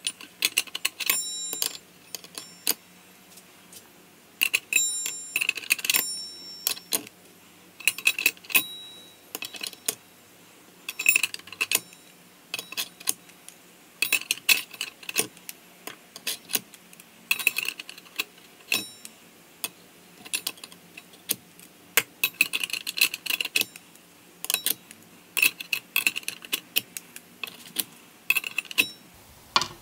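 Clutch plates of a GM NP246 transfer case clinking and clicking irregularly as the steels and frictions are stacked one by one into the clutch drum, a few of the metal plates giving a short ring.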